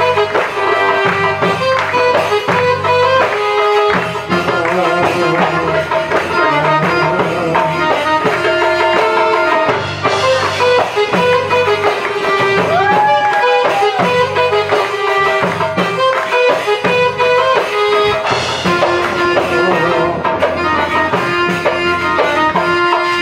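Arabic-style music from a live band, a keyboard playing a plucked-string melody over a drum beat, with a sliding note about 13 seconds in.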